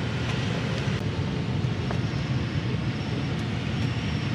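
Steady rush of airflow over a glider's canopy, heard from inside the cockpit in flight.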